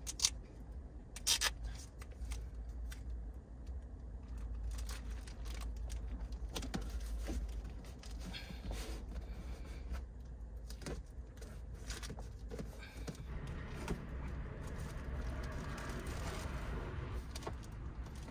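Rustling, crinkling and scraping of black plastic trash bags being fitted over a car's windows, with two sharp clicks near the start and scattered small clicks throughout.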